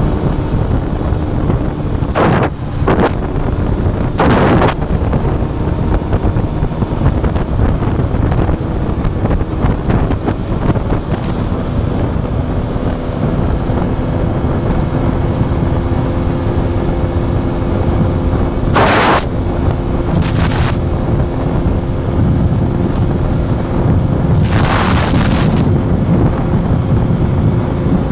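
Aprilia RS4 125's single-cylinder four-stroke engine running at a steady cruising speed under heavy wind rush on the microphone. Short rushes of noise rise and fade a few times over it.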